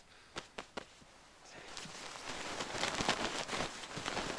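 A few light clicks, then synthetic fabric rustling and crinkling as a sleeping bag is handled and unpacked, the rustle growing louder about a second and a half in.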